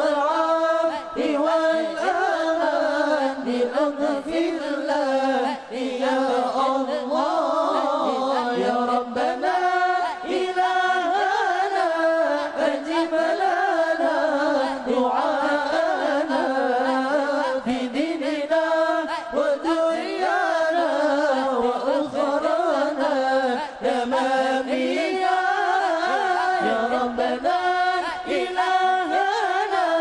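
Background music: a voice singing a slow, ornamented melody without pause, in the style of Islamic devotional song (sholawat).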